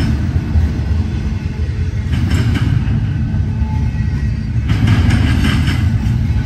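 Union Pacific double-stack intermodal freight train's well cars rolling past close by: a steady low rumble of steel wheels on rail, with louder higher-pitched clattering about two seconds in and again from about five seconds in.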